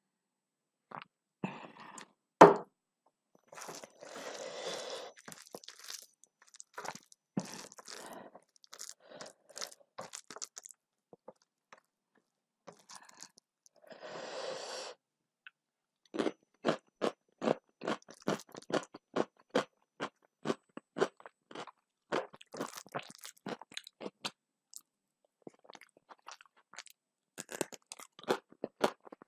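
Close-up eating sounds: a sharp clink about two seconds in, soft wet mixing of dal and rice by hand, then steady crunchy chewing, about three crunches a second, through the second half.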